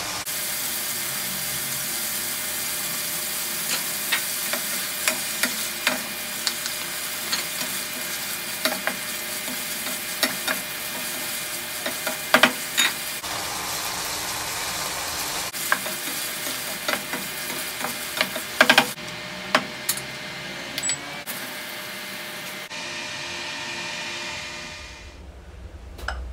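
Pork liver pieces sizzling steadily in a nonstick frying pan, with frequent sharp clicks and scrapes of a wooden spoon against the pan as they are stirred. The sizzle drops away near the end.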